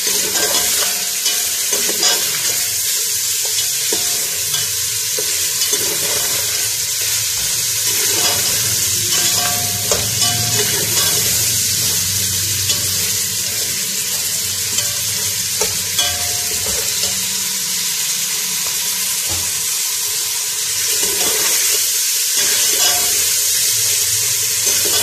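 Mutton pieces and onions sizzling and frying in hot oil in a metal pot, stirred with a slotted metal spatula. The steady sizzle is broken by occasional scrapes and clicks of the spatula against the pot.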